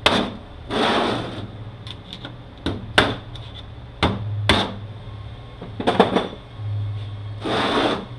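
Sharp metallic knocks and clatter from hand tools and transmission parts being worked on the bench, with two longer scraping sounds, about a second in and near the end.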